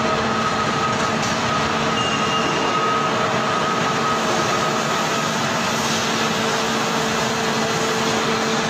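Steady machine hum with a constant whine from an electric-motor-driven hydraulic excavator running, holding an even level throughout.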